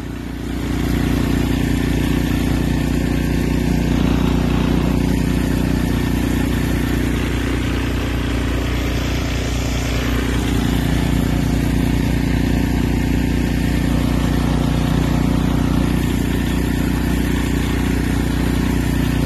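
An engine running steadily and loud, its pitch holding throughout.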